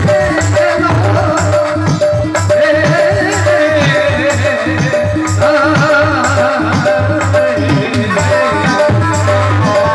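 Chetavani bhajan music: a hand drum and a jingling rattle keep a steady beat under a wavering melody line.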